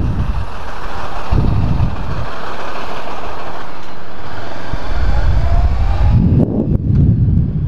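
Honda CB500X motorcycle under way in traffic: its parallel-twin engine running, with a low rumble that swells and eases, under steady wind noise on the microphone.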